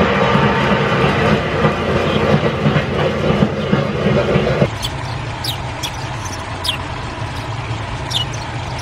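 Running noise of an N-gauge model freight train on the track, a dense whir with clicking over the rails. It cuts off abruptly about halfway through, leaving a quieter background with scattered short, high chirps.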